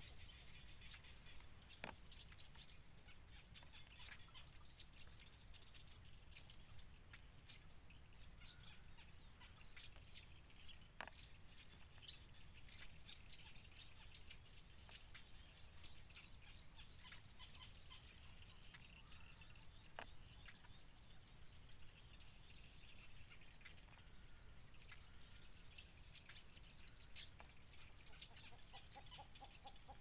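A steady, high-pitched insect trill that pulses evenly, with many short sharp chirps and ticks over it, most of them in the first half.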